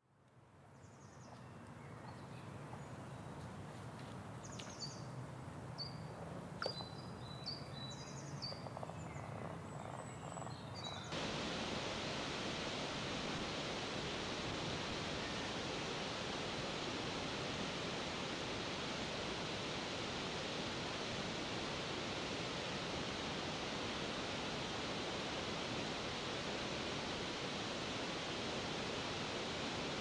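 Waterfall water rushing in a steady noise. It fades in after a brief cut, with a few faint high chirps over the first ten seconds, then about eleven seconds in it switches abruptly to a louder, fuller rush.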